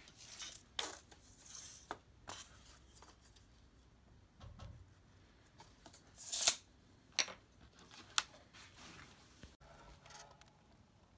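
Light scraping, rustling and clicking of a steel tape measure and pencil worked along a stack of quarter-sawn wooden clapboards to mark a board for cutting. The loudest sound is a short scraping rush about six and a half seconds in, followed by two sharp clicks.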